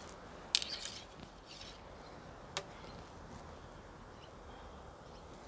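Recurve bow and arrows in use while shooting: a sharp knock with a short rustle about half a second in, then a single sharp click about two seconds later.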